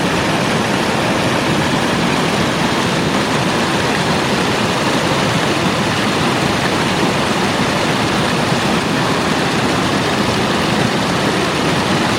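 Waterfall and river water rushing close by, a loud, steady roar with no change throughout.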